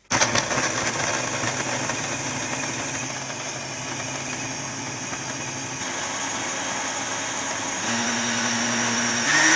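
Countertop blender switched on and running, blending frozen spinach with hot water. It starts abruptly, and near the end the motor settles into a steady hum that steps up higher and louder as the mix turns smooth.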